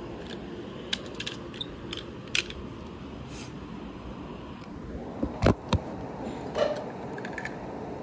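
Scattered small clicks and knocks of toy vehicles being handled, with two sharp knocks about five and a half seconds in, over a steady low hum.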